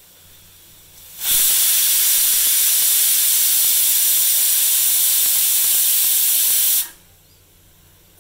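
Pressure cooker whistle: steam forces up the weighted valve and jets out in one loud, even hiss lasting about five and a half seconds, starting and cutting off abruptly. It is the sign that the cooker has reached full pressure.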